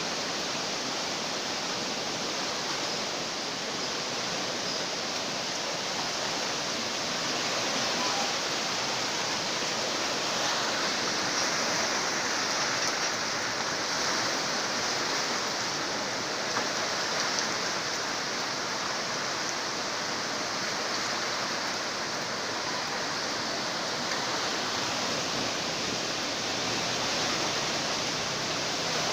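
Swollen river in flash flood, its floodwater rushing in a steady, even wash of noise.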